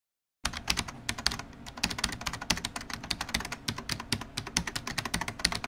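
Fast, continuous typing on a computer keyboard, many keystrokes a second. It starts about half a second in and cuts off abruptly at the end.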